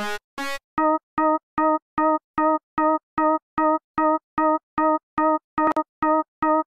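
A single electronic keyboard note, like an electric piano, repeated on the same pitch in short even strokes about two and a half times a second. A brief extra blip with a click comes a little before the end.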